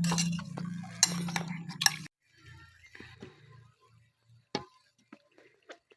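Cutlery clinking and tapping on plates while eating, a few scattered light clicks. A steady low hum runs under the first two seconds and cuts off suddenly.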